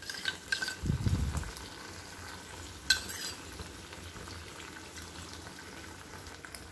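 A spoon scraping and clinking in a small steel cup of cornflour slurry, with a soft thump about a second in and a sharp click near three seconds, over the steady sizzle of onions and capsicum frying in a pan as the slurry is poured in.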